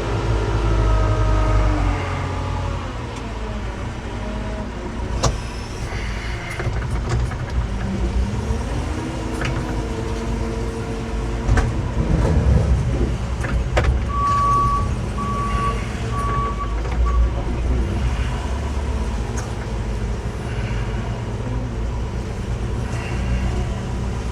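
Heavy vehicle engine running with its revs rising and falling, with a few sharp metallic knocks. About two-thirds of the way through, a short run of about four warning beeps sounds.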